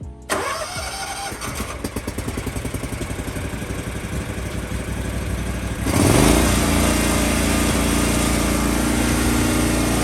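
Lawn mower engine running at a low, pulsing idle, then throttled up to a louder, steady run about six seconds in.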